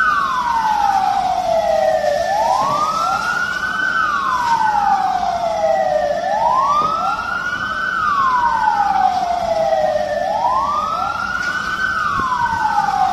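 Emergency vehicle sirens wailing. Each cycle rises quickly, holds its top note and then slides slowly down, repeating about every four seconds. Two or more sirens sound slightly out of step with each other.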